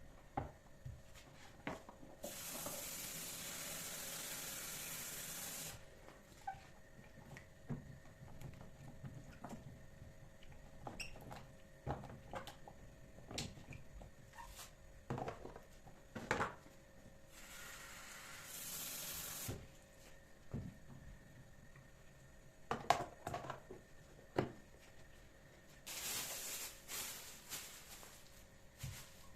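Kitchen handling sounds: scattered light knocks and clicks of things being picked up and set down, with three short stretches of hissing, the first and longest about two seconds in.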